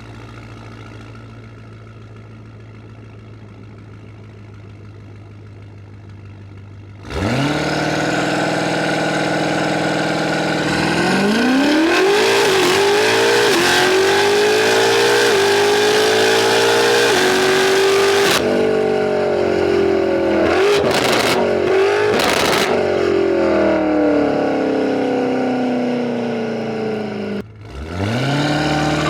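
Tuned BMW F90 M5's twin-turbo V8 idling low and steady, then launching hard about seven seconds in and accelerating through several upshifts, the revs climbing in steps. The revs then fall away steadily as the car slows, with a brief lift and a rise in revs near the end.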